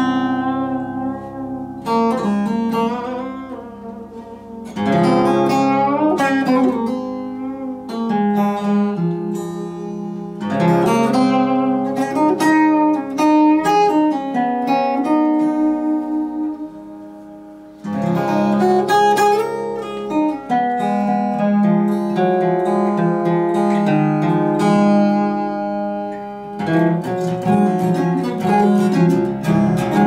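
Solo acoustic guitar played by plucking, chords and melody notes ringing out and dying away. Loud fresh chords come in about five, ten, eighteen and twenty-seven seconds in, with softer passages of fading notes between them.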